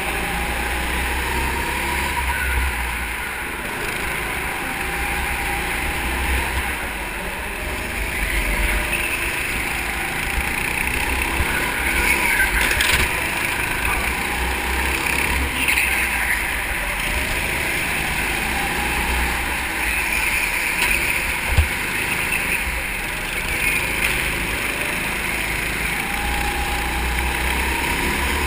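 Onboard sound of a go-kart driving at speed around an indoor track: the kart running steadily, with low wind buffeting on the camera microphone. A single sharp knock about three-quarters of the way through.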